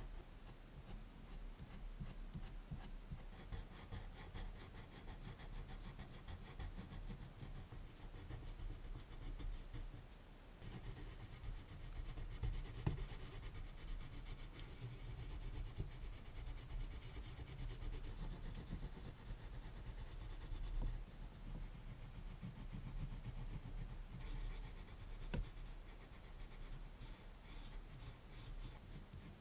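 Black Prismacolor colored pencil scratching on paper in quick, small strokes as it fills in a dark area, with a brief pause about ten seconds in.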